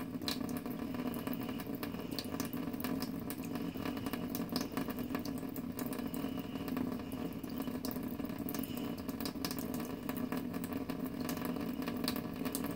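Thin stream of tap water running steadily from a kitchen faucet into a stainless steel sink, with a cat lapping from the stream, heard as frequent quick light clicks over the water.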